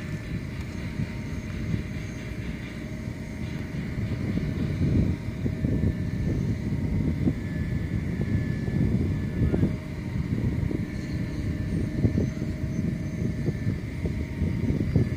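Oil-well pumpjack (beam pump) running, heard as a low, uneven rumble with a few faint steady machine tones above it, with wind buffeting the microphone.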